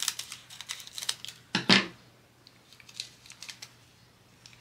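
A tiny plastic bag of diamond-painting drills being opened and handled: a quick run of crinkles and sharp clicks, one louder click near the middle, then a few faint ticks.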